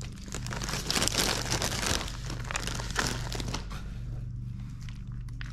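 Plastic wrapper crinkling and crackling as a crunchy taco topping is handled and sprinkled, busy for about three and a half seconds, then quieter. A steady low hum sits underneath.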